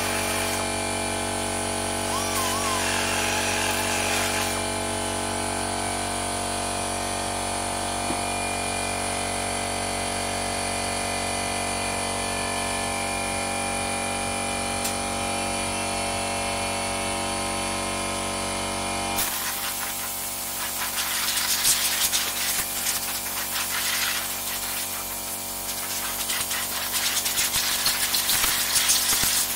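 Vacuum cleaner motor running steadily, sucking up metal grinding dust, then cutting off abruptly about two-thirds of the way through. Irregular hissing and scraping follows as the chassis is cleaned, louder near the end.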